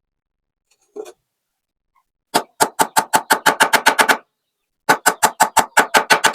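Two runs of rapid sharp knocks, about six a second. The first run is about a dozen strikes that speed up; the second, after a short pause, is about eight.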